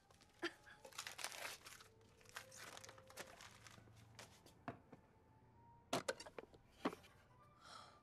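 Gift wrapping paper crinkling and tearing as a present is unwrapped, in scattered short rustles and rips.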